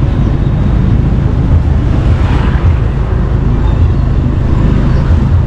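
ATV engine running steadily while riding, a loud low rumble, with a short swell of higher-pitched noise about two seconds in.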